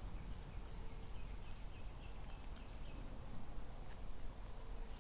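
Forest ambience: a bird gives a run of short repeated high notes, about four a second, for roughly three seconds over a low steady rumble.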